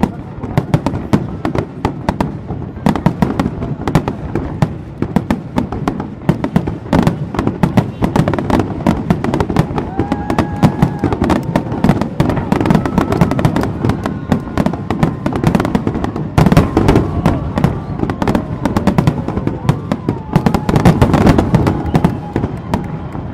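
Fireworks display in a dense, rapid barrage: many shell bursts and crackling reports overlapping with hardly a break. High whistling tones sound over the bangs from about ten seconds in.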